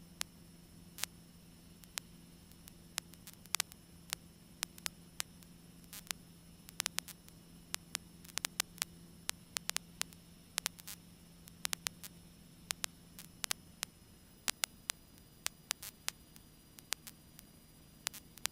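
Static on a cockpit intercom and radio audio feed between transmissions: a low steady hum with irregular sharp clicks and crackles, some in quick clusters. The hum weakens about three-quarters of the way through.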